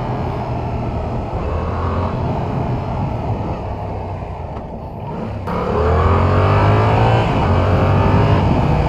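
2022 Yamaha R7's parallel-twin engine under way: the revs ease off and dip about halfway, then the throttle opens and the engine pulls with a rising pitch, changing up a gear shortly after.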